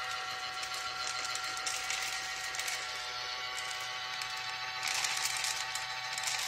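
Battery-powered motor of a Cat Mate D3000 automatic pet feeder running steadily with a whine, with clicking and rattling over it that grows brighter about five seconds in.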